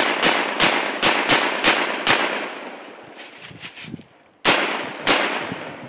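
AR-15 rifle in 5.56/.223 firing rapid semi-automatic shots: seven in about two seconds, then a pause and two more shots near the end, each crack trailing off into the woods.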